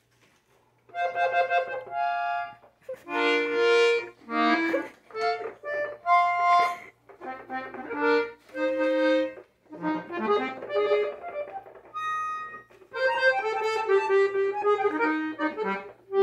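A new Gabanelli accordion sounding short, separate chords and single notes, each held for under a second with short gaps between and the pitch changing from one to the next, with no tune: a beginner trying out the instrument for the first time. It starts about a second in.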